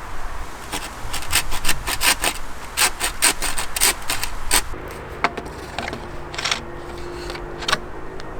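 Quick rasping strokes on wood, two or three a second, stopping about halfway through; after that a faint steady hum with a few scattered clicks.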